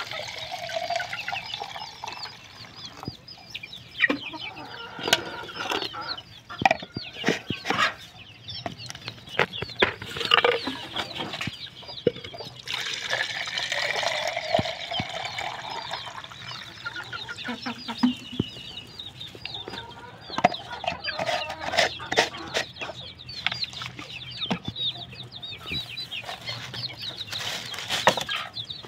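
Chickens clucking and calling close by, over water being poured from a plastic jug into a plastic pot, with sharp knocks scattered through.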